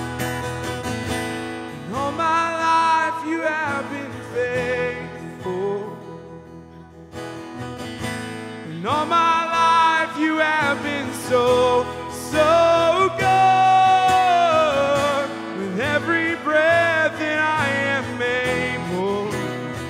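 Live worship band: a man singing lead over strummed acoustic guitar, with drums and a second voice, and a quieter lull about six to eight seconds in.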